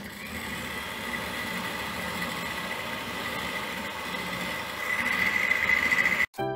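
Electric hand mixer running steadily, its wire beaters whisking egg yolks and sugar in a bowl, with a steady motor whine that grows louder about five seconds in. It cuts off suddenly near the end and piano music starts.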